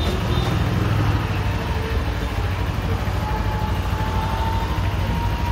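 Steady low engine rumble amid street traffic noise, with a faint, slowly rising whine in the second half.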